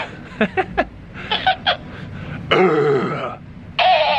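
A man laughing in short bursts, with a repeat-back talking toy playing the laughter back.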